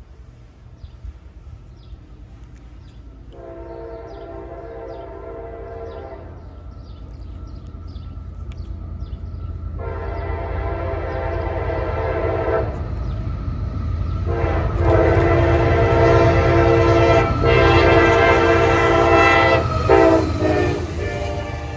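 A CSX diesel locomotive's air horn sounds three times as an intermodal freight train approaches: two blasts of about three seconds each, then a longer one near the end. Under the horn, the locomotives' engines and wheels rumble and grow steadily louder as the train nears.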